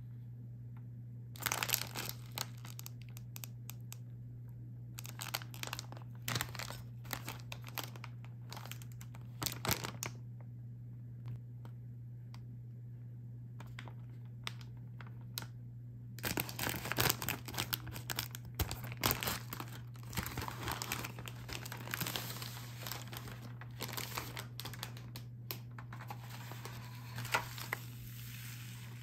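Plastic candy-kit packaging crinkling in a few short bursts as the bag is handled, then a long stretch of tearing and rustling from a little past halfway as the bag is opened and the plastic tray and foil sachets are pulled out. A steady low hum runs underneath.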